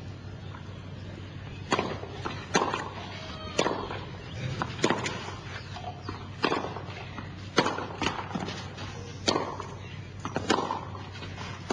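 Tennis ball struck back and forth with rackets during a rally: a series of sharp pops about once a second, ball on strings and on the court.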